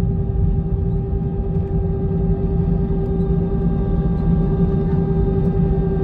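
Cabin sound of an Airbus A320's CFM56 engines at taxi idle, heard from a seat behind the wing: a low rumble with a steady whine of several held tones.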